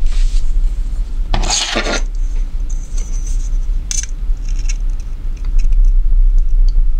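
Steel ruler scraping and clicking against a steel knife blade as it is laid along the blade: one longer scrape about a second and a half in, a sharp click about four seconds in and a few small ticks, over a steady low hum.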